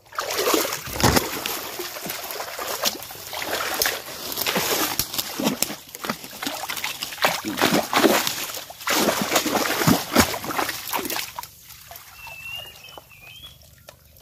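Water sloshing and splashing as a large basket is scooped through shallow water, with many sharp splashes. About eleven and a half seconds in it turns quieter, to a light trickle.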